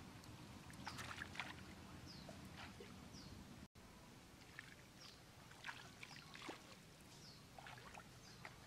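Faint wet squelches and small splashes of eels writhing in shallow muddy water, with short high bird chirps repeating in the background. The sound drops out for an instant about halfway through.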